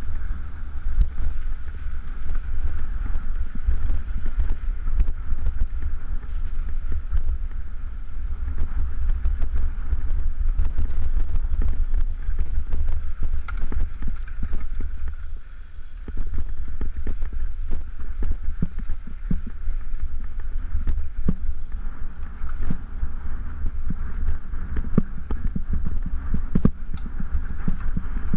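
Wind buffeting the microphone of a camera mounted on a mountain bike's handlebars while it rides a rough dirt trail, with frequent clattering knocks from the bike and tyres jolting over bumps. The wind eases briefly about halfway through.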